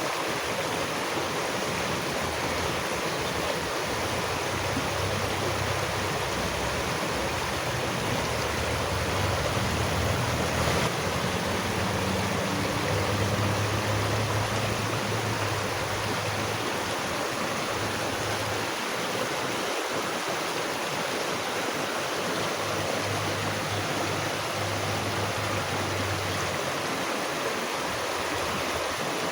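Flowing water rushing steadily as an even, continuous hiss, with a low rumble underneath that swells and fades.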